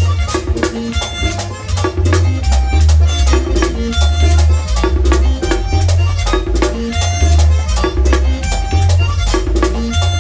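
Merengue típico band playing: a steady dance beat of percussion strokes over a pulsing bass line, with short pitched melodic notes above.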